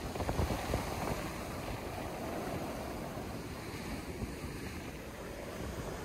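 Ocean surf breaking and washing up the sand close by, with wind buffeting the microphone in a low rumble.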